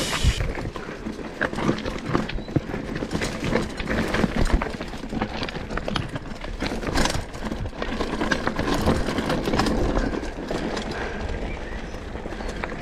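Mountain bike rolling downhill over loose stones and dirt: tyres crunching over rocks, with the chain and frame rattling and clicking in quick, uneven knocks.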